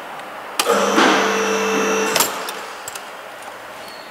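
Metal fire extinguisher cylinder sliding into a metal cage bracket: a click, then about a second and a half of metal-on-metal scraping with a ringing tone, ending in a click, and a few light clicks after.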